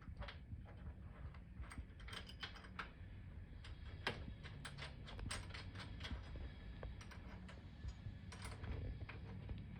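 Irregular light metallic clicks and ticks of hand tools and bolts being handled while a race hook is fitted to a motorcycle's rear frame, over a steady low hum.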